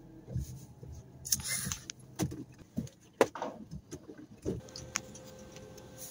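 Scattered clicks and taps and a short rustle inside a car cabin, then a steady electronic tone from the car that begins about four and a half seconds in.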